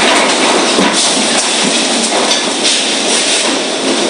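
Storm-force wind from Tropical Cyclone Seroja blowing in a loud, steady roar, with loose debris knocking and rattling in it. The roar eases a little near the end.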